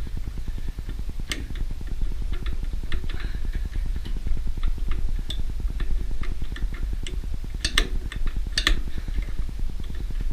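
Scattered sharp clicks and knocks of a starter motor's parts being twisted and worked to seat a 3D-printed plastic starter gear onto its shaft, the loudest two near the end, over a steady low hum.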